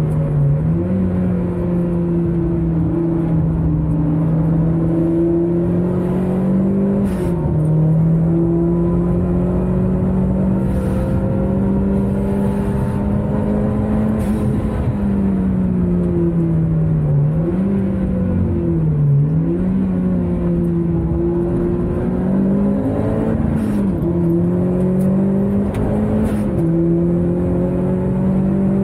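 Car engine heard from inside the cabin, driven hard on a race circuit. Its note is held mostly steady and high, with a few brief dips in pitch where the driver shifts or lifts off before it climbs again.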